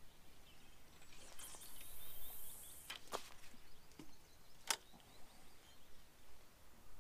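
A feeder rod being cast: a high swishing whoosh of the rod and line running off the spinning reel, followed by two sharp clicks about a second and a half apart.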